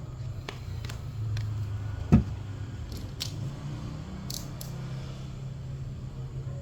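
Scattered light clicks and taps from handling things on a table, with one loud knock about two seconds in, over a steady low hum.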